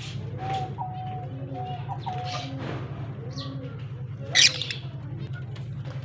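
Lovebirds chirping and calling in an aviary, with short, sharp high-pitched calls, the loudest about four and a half seconds in. A steady low hum runs underneath.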